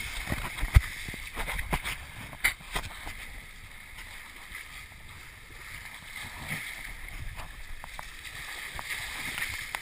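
Water rushing and splashing along the hull of a small sailing proa under way through choppy water, with a few sharp knocks in the first seconds, the loudest about a second in.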